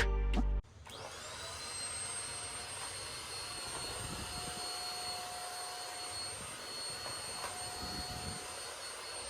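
Handheld vacuum cleaner (Gaabor GVCM-M10A) switching on: its motor whine rises in pitch over about a second, then it runs steadily with a rushing airflow.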